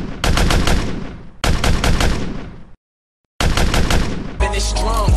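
Automatic gunfire sound effect: three rapid bursts of about a second each, each dying away, with a short dead silence before the last. Near the end the shots give way to a different, steadier sound.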